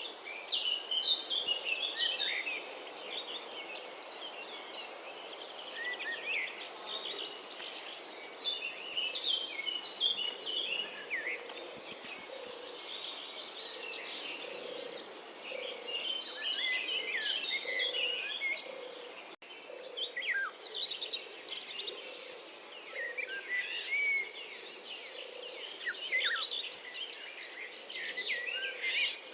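European robin singing in winter: quick, varied phrases of thin, high twittering notes over a steady high hiss. There is a brief dropout about two-thirds of the way through.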